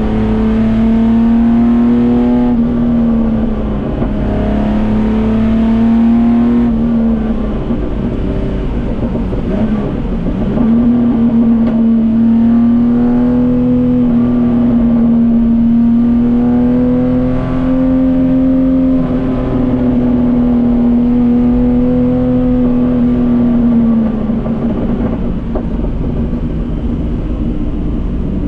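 Datsun 240K Group C race car's straight-six engine running hard at high, fairly steady revs. The pitch drops and climbs back a few times, most sharply about ten seconds in.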